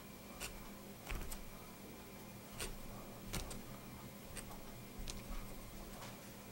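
Plastic dough scraper pressing down through a log of yeast dough on a floured work surface, each cut ending in a light click or tap against the board, about once a second.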